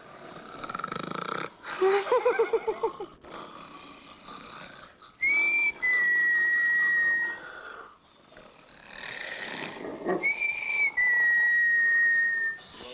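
Comedy snoring sound effect: a rasping snore drawn in, then a long steady whistle on the out-breath, slightly falling in pitch, heard twice, about five and about ten seconds in.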